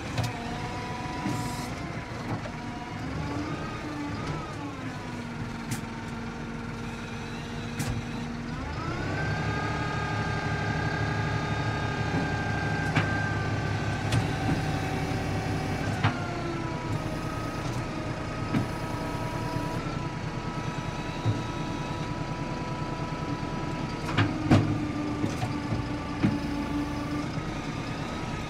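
Excavator's diesel engine and hydraulics heard from inside the cab, the pitch rising about nine seconds in and dropping again a few seconds later as the boom works, with a few sharp metal clanks as the quick coupler picks up a digging bucket.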